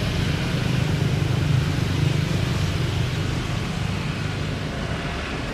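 Steady rumble of jet airliner engines with a deep low hum, swelling slightly about two seconds in and then slowly easing off.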